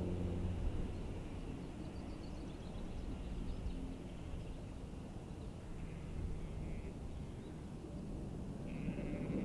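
Distant low rumble of a steam locomotive, LMS Black Five 4-6-0 No. 45212, running light engine. The rumble eases after the first second and builds again near the end. A few faint bird chirps come about two to three seconds in.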